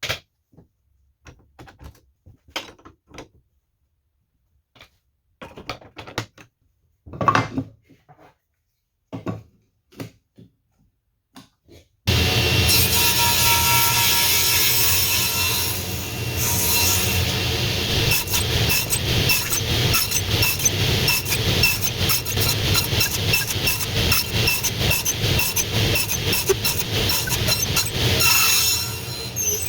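A few scattered knocks of wood being handled, then from about twelve seconds in a power tool cutting wood, running loud and steady with a fast, even chatter. The cuts are rabbets being made in 4x4 legs.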